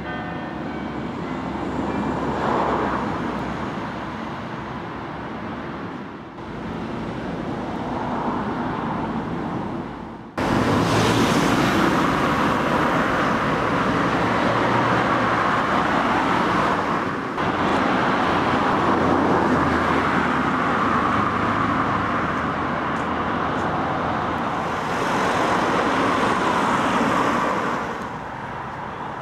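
Road traffic noise: a steady wash of passing cars, jumping louder about ten seconds in.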